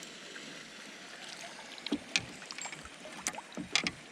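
Faint water noise around a small paddled fishing boat, with scattered clicks and knocks from about a second and a half in as gear and the landed fish are handled aboard.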